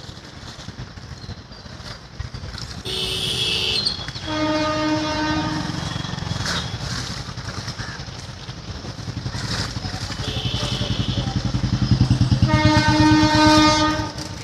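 Road traffic: a vehicle engine throbs, growing louder toward the end, and a horn is blown twice, about four seconds in and again near the end, each time for a second or two.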